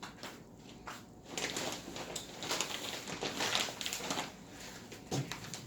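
Rustling and crinkling of shopping bags and packaging being handled, for about three seconds in the middle, with a few soft knocks.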